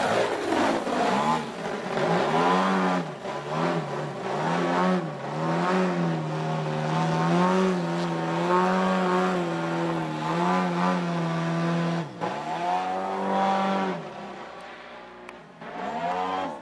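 Giant-scale RC Yak-55 aerobatic plane's engine and propeller running in flight. The pitch drops as it passes close by just after the start, then swoops up and down with throttle changes through the manoeuvres, and the sound grows fainter near the end as the plane gets farther away.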